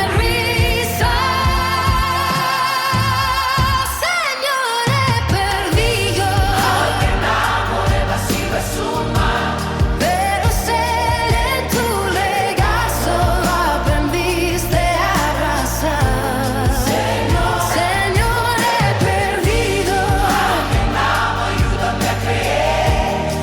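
Christian worship ballad: a voice holds a long note with vibrato, the low end of the band drops out briefly about four seconds in, and singing then carries on over a steady beat.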